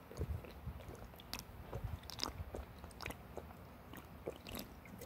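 A person drinking from a can, with faint gulps and small mouth clicks scattered through.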